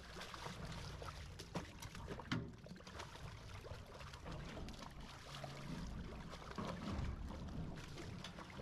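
Water trickling and lapping around a small fishing boat, with a few sharp knocks and clicks.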